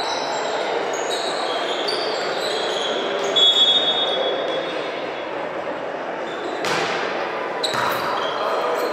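Indoor volleyball play: short high squeaks of shoes on the court floor, the loudest about three and a half seconds in, then two sharp smacks of the volleyball a second apart near the end, over a steady murmur of voices in the hall.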